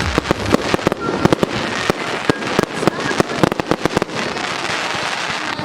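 Fireworks going off in quick succession: many sharp bangs and cracks a second, overlapping with a continuous crackle.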